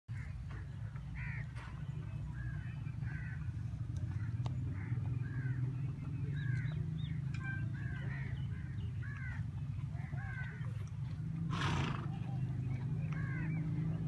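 Birds calling over and over in short, arched chirps above a steady low hum. About eleven and a half seconds in there is a short breathy rush.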